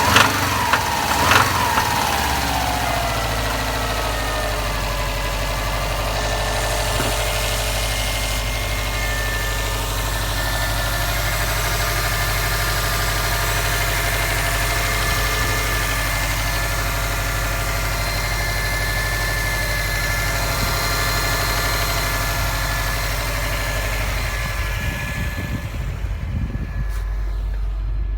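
2015 Subaru WRX STI's turbocharged flat-four engine running, with the knock the owner is recording it for. A couple of sharp knocks come at the start, the revs fall over the first few seconds, and then it idles steadily.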